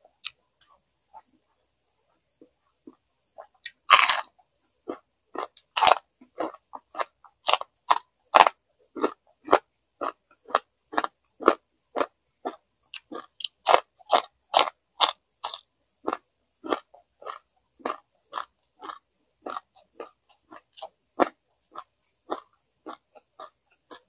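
A person biting into crunchy food about four seconds in, then chewing it with steady crunching, about two to three chews a second.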